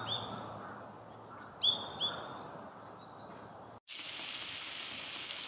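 A bird gives short, sharp high calls, one right at the start and two close together a little under two seconds in. Near the end, after a sudden change, French toast sizzles steadily in a frying pan.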